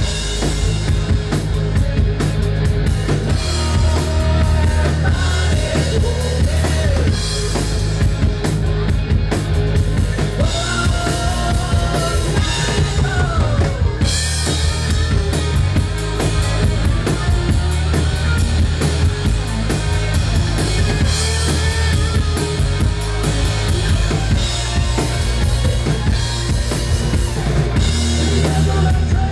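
Live rock band playing loud: a drum kit with kick and snare driving under electric guitars and bass, with gliding, bent guitar notes.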